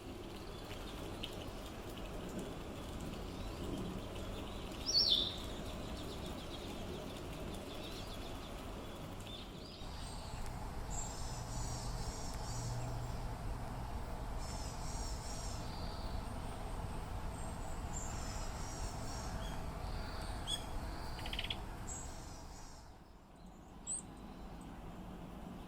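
Small birds chirping and singing short, high trilled phrases, several in a row about halfway through, with single sharp chirps around them, over a steady background noise.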